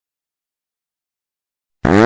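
Silence, then near the end a fart sound effect starts: a loud, buzzy blast with a clear pitch.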